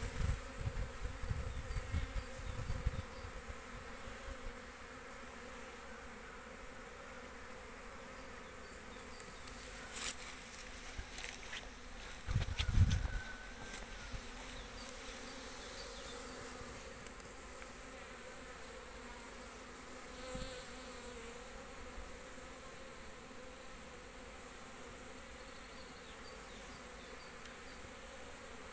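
Honeybees buzzing in steady flight around a hive entrance, a colony out on its first spring cleansing flights after overwintering. Low rumbles on the microphone in the first few seconds and again about twelve seconds in.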